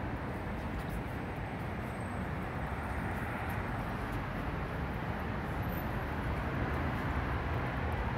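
Steady street traffic noise of vehicles running on a busy city road, with a low engine hum underneath, growing slightly louder near the end.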